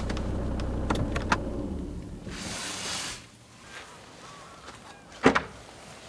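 Handling at a car with its tailgate open: a low rumble that fades out after about two seconds, a few sharp clicks, a short rustling swish about halfway through, and a single loud thump near the end.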